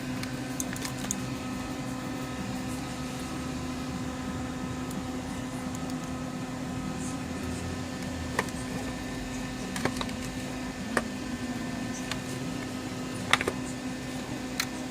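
A steady electric hum with several fixed pitches, with a handful of light clicks and taps scattered through it.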